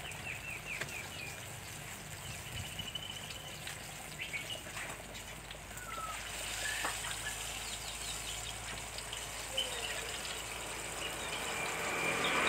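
Banana fritters sizzling in a deep pot of hot oil, a steady hiss, with short bird chirps now and then. The noise swells near the end.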